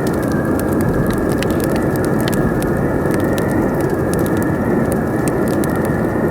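Wood fire crackling with frequent sharp, irregular pops over a steady, loud rush of howling wind.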